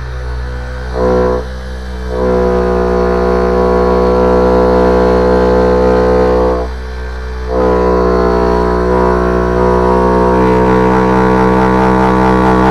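Dual-action polisher running on an Audi SQ5 taillight. The plastic light housing vibrates under the pad into a loud, steady, buzzing drone. The drone drops off briefly three times: near the start, about a second and a half in, and about seven seconds in.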